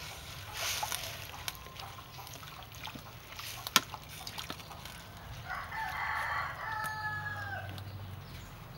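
A rooster crows once, a call of about two seconds that falls away at the end. A single sharp click comes about four seconds in.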